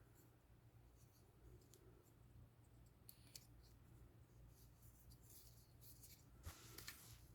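Near silence with faint handling clicks and rubs from a small pocket knife and lighter case being worked in the hands. There are two sharper clicks about three seconds in and a few more near the end.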